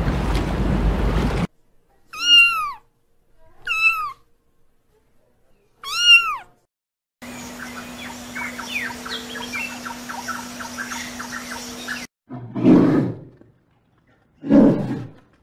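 Cat meowing three times, each a high meow that rises and falls, then a noisy stretch with faint chirps and a steady hum, then two low rough growls.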